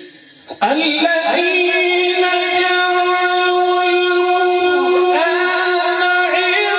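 A man reciting the Quran in the melodic tilawat style into microphones. After a brief pause his voice comes in about half a second in with one long held note, which turns into ornamented wavering near the end.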